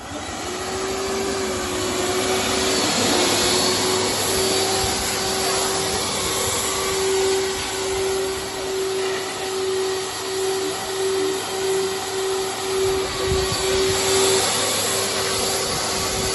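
Car-wash vacuum machine switched on, its motor spinning up with a rising whine and then running steadily as it vacuums the car's interior. The whine and rushing air waver in loudness throughout.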